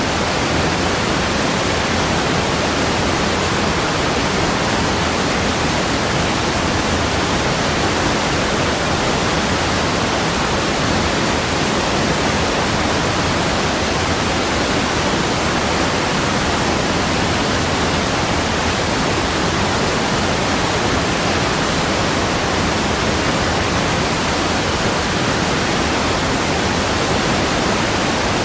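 Steady rushing water: a loud, even hiss with no separate splashes or changes.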